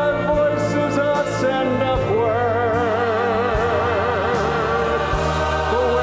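Choir singing with accompaniment; from about two seconds in a voice holds long notes with wide vibrato.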